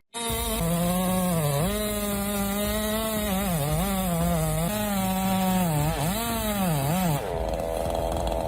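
Chainsaw running near full throttle in a steady high whine, its pitch sagging briefly several times as the chain bites into the wood. Near the end the sound drops to a quieter, different texture.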